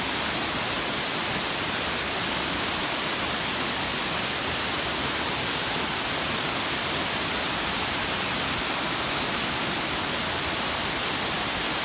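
Waterfall rushing: a steady, loud roar of falling water with no change.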